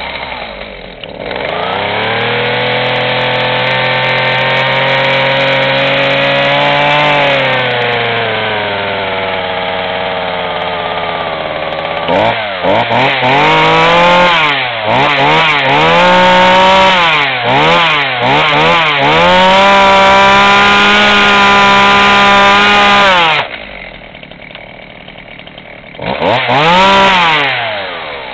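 Husqvarna 40 two-stroke chainsaw revving with its chain running free of the wood. It goes to high revs about a second in and holds there, eases back, is blipped up and down several times, and is held high again before dropping to idle. It gives one last blip near the end.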